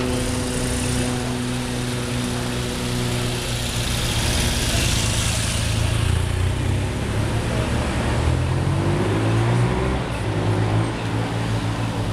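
Police escort vehicles, a motorcycle and cars, driving slowly past with engines running and tyre hiss swelling about five seconds in; an engine note rises near the end as one pulls away.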